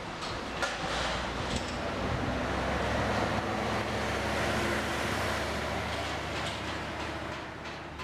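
Outdoor street and construction-site noise: a steady low hum under a noisy rush that swells in the middle and fades towards the end, with a few faint knocks.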